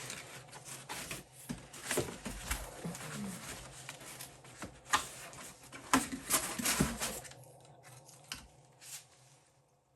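Packaging and hard plastic parts being handled: irregular rustling and crinkling with several sharp clicks and knocks, the loudest about five and six to seven seconds in, fading out near the end.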